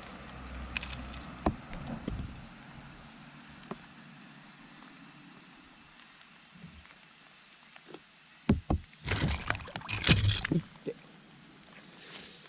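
Water splashing and knocking around a float tube, with scattered knocks early on giving way to a cluster of loud splashes and knocks about nine to ten seconds in, over a steady high hiss.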